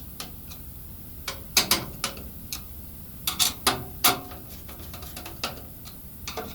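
Screwdriver tightening motherboard screws into the case standoffs: a scatter of irregular small metallic clicks and ticks, a few louder ones near the middle.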